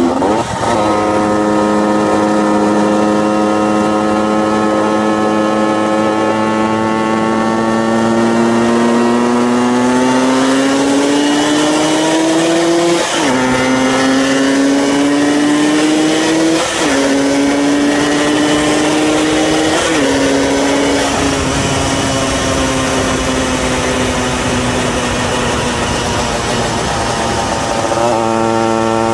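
Honda NSR two-stroke motorcycle engine under way, its note climbing slowly with speed and dropping sharply at each of four upshifts: one just after the start, then about 13, 17 and 20 seconds in. It then holds a steady note and drops to a lower, even note near the end, with wind rushing past throughout.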